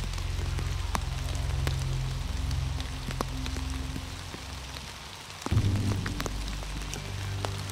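Background music of low held notes that change chord about five and a half seconds in, over falling rain with scattered drops ticking sharply on a surface.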